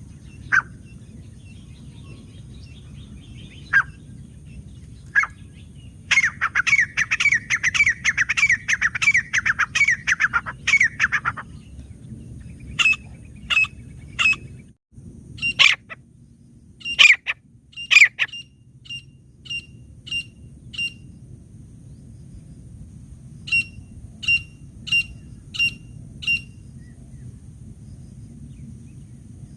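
Grey francolin (teetar) calling: a few single sharp calls, then a rapid run of rising notes for about five seconds, then series of short, evenly spaced sharp notes, about two a second, with a pause between them. A faint steady low hum runs underneath.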